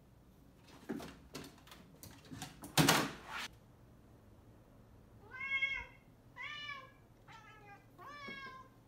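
A run of knocks and thumps, the loudest about three seconds in. Then a domestic cat meows four times in quick succession, each meow rising and then falling in pitch.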